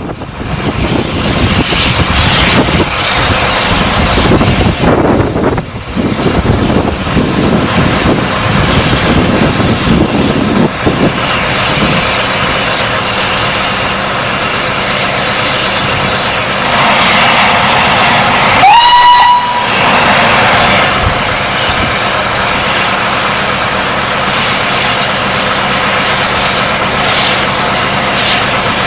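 SR N15 'King Arthur' class 4-6-0 steam locomotive No. 30777 Sir Lamiel arriving slowly, with a loud, steady hiss of steam from the open cylinder drain cocks. About two-thirds of the way through, its whistle gives one short blast that rises quickly into a steady note for about a second.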